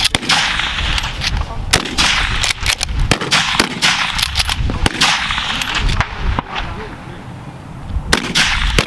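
Service rifles firing along a range line: many sharp shots in quick, overlapping succession from several rifles during a rapid-fire stage. The shots thin out briefly about six seconds in, then pick up again near the end.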